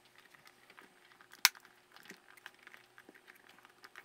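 Hands moving a plastic differential-probe housing on a silicone work mat: faint rubbing and small clicks, with one sharp click about a second and a half in.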